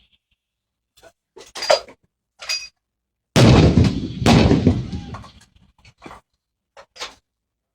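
Two 105mm artillery shots about a second apart, each a loud sudden blast with a long fading rumble, preceded and followed by a few short clicks and knocks.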